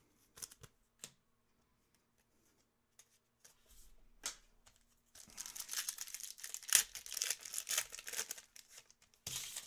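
A foil trading-card pack being torn open and crinkled in the hands: a dense run of crackling and tearing lasting about three and a half seconds, about halfway through. A few light clicks of card handling come near the start.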